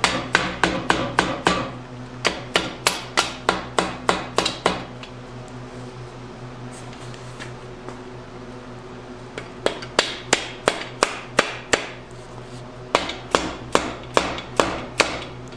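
A mallet tapping steel main bearing caps down onto a V8 engine block to seat them over the crankshaft before torquing: quick sharp knocks about three a second, in three runs with short pauses between.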